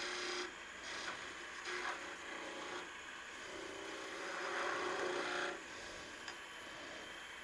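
Skew chisel cutting into wood spinning on a lathe: a scraping hiss in several short passes, the longest about two seconds near the middle.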